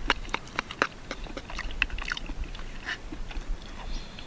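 A person chewing and biting food close to the microphone: a string of irregular, crisp clicks, quickest in the first second or so.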